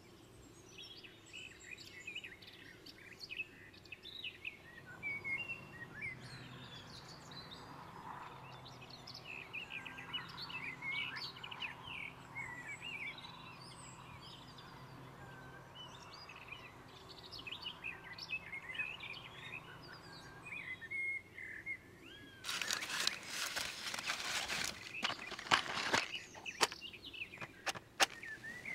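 Songbirds chirping and singing, then near the end a wooden match struck several times against the side of a matchbox: a run of rasping scrapes and a few sharp clicks, the loudest sounds here.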